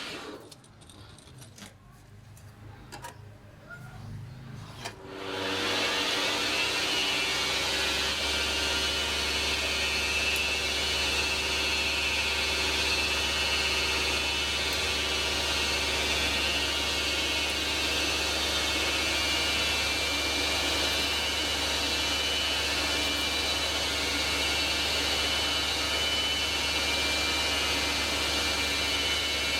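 Metal lathe motor starting about five seconds in and then running steadily, after a few quiet clicks of handling.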